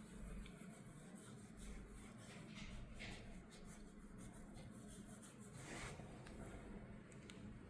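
Faint rubbing and brushing of hands working over skin and hair during a head and face massage, in soft irregular strokes, over a low steady hum.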